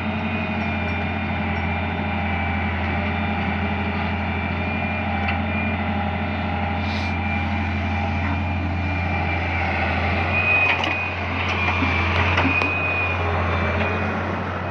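Excavator's diesel engine running steadily under load, with a thin high whine over the low hum. A few short knocks and a slightly louder stretch come about ten to thirteen seconds in.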